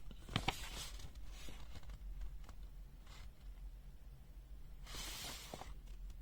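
Paper user manual being handled and its pages turned: a couple of sharp clicks about half a second in, a short rustle, then a longer paper rustle near the end.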